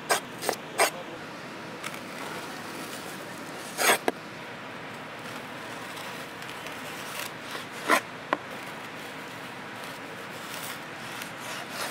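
A large knife slicing lengthwise through a raw green banana on a wooden cutting board, with several sharp knocks as the blade meets the board. The loudest knocks come about four and eight seconds in.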